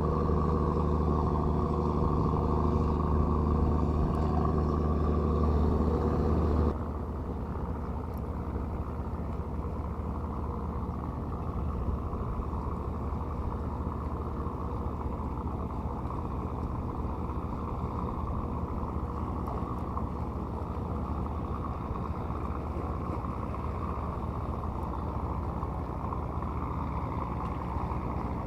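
An engine running steadily, dropping suddenly to a lower, quieter drone about seven seconds in.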